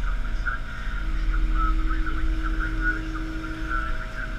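A working boat's engine running steadily on deck: a continuous low rumble with a wavering, higher-pitched whine above it.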